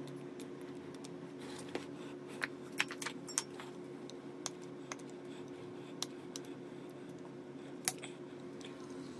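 Irregular small metallic clicks and clinks of needle-nose pliers and steel cylinder studs against the piston and engine casing of a Honda Benly 110 scooter engine, with a cluster of clicks a few seconds in and one sharper click near the end. A steady low hum runs underneath.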